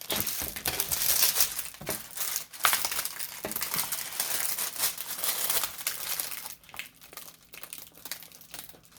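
Packaging crinkling and rustling in irregular handling noises as a diamond painting kit's canvas is unrolled and handled; it grows fainter in the last few seconds.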